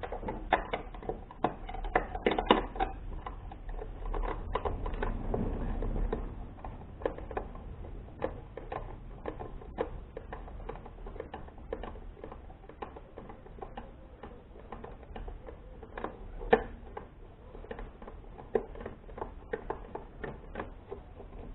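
Long metal screwdriver clicking and scraping against a screw deep in a recessed hole of a plastic juicer base, with many small irregular clicks as the tip works at the screw.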